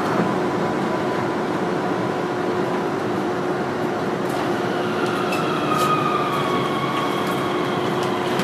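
Onboard running noise of a Manyosen MLRV1000 low-floor tram, a steady rumble of wheels on rail with faint motor tones, as it approaches the terminus. About five seconds in, a whine falls in pitch over a couple of seconds.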